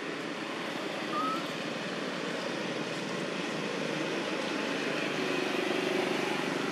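Steady outdoor background noise like a low rumble of passing traffic, growing slightly louder toward the end, with one short rising chirp about a second in.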